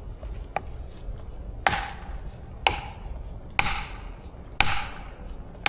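A felling wedge being driven into a tree's back cut with an axe or hammer: five sharp blows about a second apart, each with a brief ring, just before the tree goes over.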